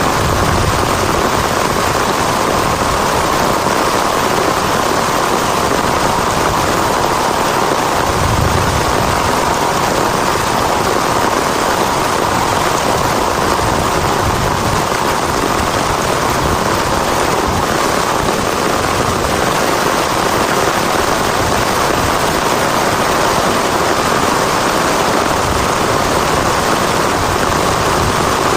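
Heavy rain falling hard, a steady, loud hiss without a break. There is a short low rumble about eight seconds in.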